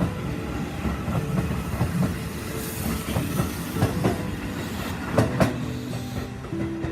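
Electric commuter train running on the track with a steady rumble and repeated sharp clacks of its wheels over rail joints. Near the end, music comes in.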